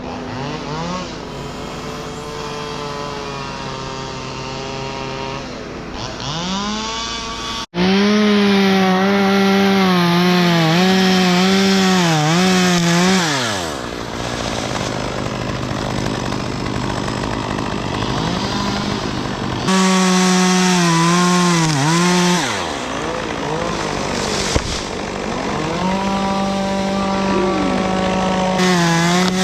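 Gas chainsaw cutting oak: the engine revs up, holds high with its pitch wavering and sagging as the chain bites into the wood, then drops back toward idle, several times over. The longest loud run comes about a quarter of the way in, and a shorter one past two-thirds.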